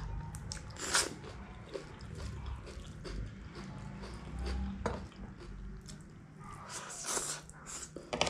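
Close-up eating sounds of egg chow mein being chewed, with wet mouth smacks. Sharper smacks come about one, five and seven seconds in, all over a low steady hum.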